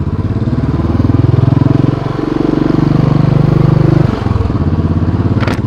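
Royal Enfield Bullet 500's single-cylinder engine pulling away and accelerating, its pitch rising. It dips briefly about two seconds in, runs loudest until about four seconds in, then drops back as the throttle eases.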